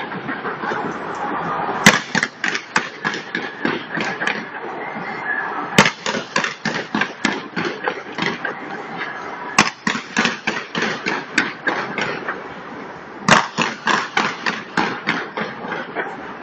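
Aerial fireworks bursting in rapid volleys of sharp bangs and crackles, with a big single report about 2, 6, 10 and 13 seconds in, each followed by a quick string of smaller bangs, over a steady background of crowd noise.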